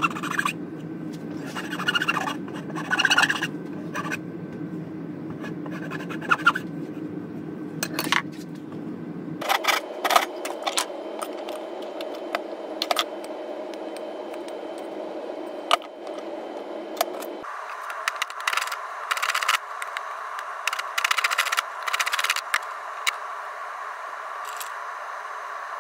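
A hand file scraping along a wooden hammer handle in short strokes, in groups with pauses between, over a steady background hum.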